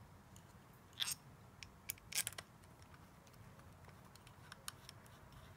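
A few light clicks and taps of small metal parts being handled: the governor solenoid body and its screws being lined up against the transmission valve body. One tap comes about a second in, a couple more around two seconds in, and a faint one near the end.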